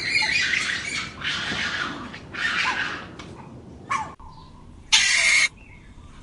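Animal calls: a run of harsh, noisy bursts, three close together and then a louder, shorter one about five seconds in.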